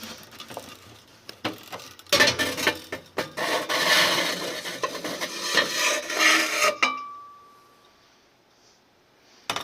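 Gas water heater burner assembly being worked out of the combustion chamber: metal scraping, rubbing and clinking, busiest from about two seconds in until about seven seconds, where it stops with a brief metallic ring.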